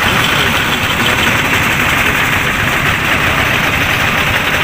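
Single-cylinder diesel engine of a two-wheel walking tractor running steadily.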